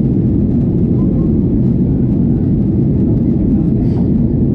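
Gol Boeing 737 jet airliner: a loud, steady low rumble that holds constant without rising or falling.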